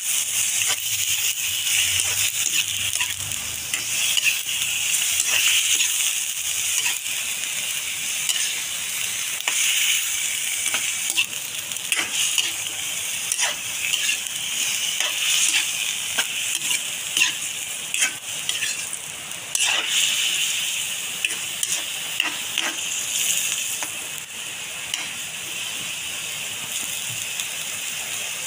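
Squid with ginger and onion sizzling in a hot wok as a spatula stirs it, with irregular clicks and scrapes of the spatula against the pan.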